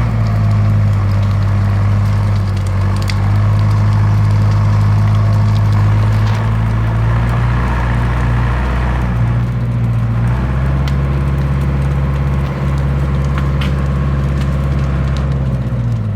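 Manitou telehandler diesel engine running steadily, with scattered sharp pops over the hum: the popping noise the owner is recording. The engine speed steps up slightly about ten seconds in and drops near the end.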